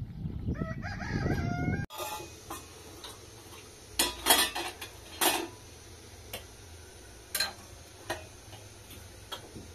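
A rooster crows over a low rumble during the first two seconds. After that come several sharp clinks, tea glasses knocking against each other and against a tray as they are set out, the loudest about four seconds in.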